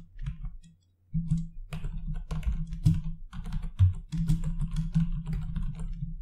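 Typing on a computer keyboard: a quick, uneven run of keystrokes, with a brief pause about a second in.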